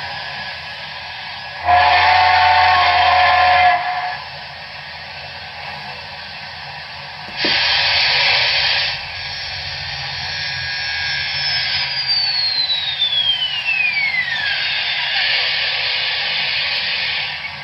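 Sound decoder of a Broadway Limited Paragon 4 HO-scale Southern Pacific GS-4 steam locomotive: a chime steam whistle blows once for about two seconds, then a loud burst of steam hiss about seven seconds in, over steady steam hissing. A high tone slides downward a little past the middle.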